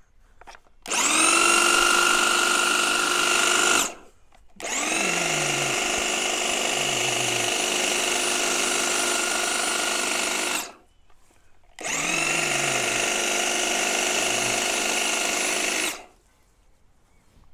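Bosch AdvancedHedgeCut 70 corded electric hedge trimmer running while trimming a privet hedge, in three runs: each time the motor spins up quickly to a steady whine, then cuts off, with short pauses between. The first run is the loudest.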